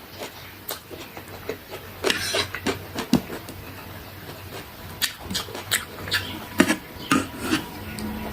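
Close-miked eating of chicken chow mein: chewing and mouth smacks, a quick run of sharp wet clicks with a longer noisy smear about two seconds in.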